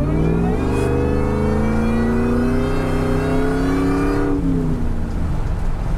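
2003 Ford Lightning's supercharged 5.4-litre V8 accelerating hard under full throttle, heard from inside the cab. The engine note jumps up at the start, climbs steadily in pitch for about four seconds, then drops back as the automatic gearbox shifts up.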